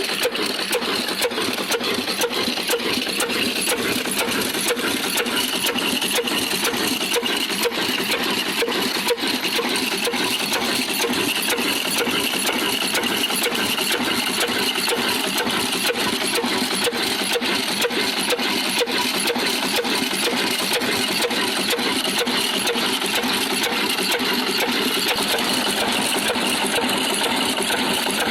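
Old stationary diesel engine running steadily alongside a belt-driven stone flour mill, giving a dense machinery clatter with a fast, even ticking rhythm.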